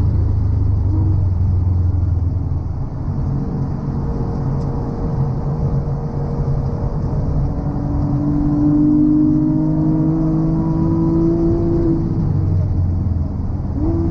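Porsche 911 GT3's naturally aspirated flat-six, heard from inside the cabin while driven hard on track. It eases off about three seconds in, climbs steadily in revs later on, and drops sharply near the end, as at a manual gearshift, before pulling again, over road and wind noise.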